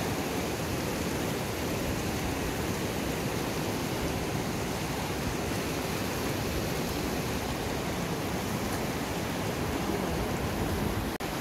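Fast mountain river rushing over boulders and rapids: a steady, even noise of running water, with a momentary break shortly before the end.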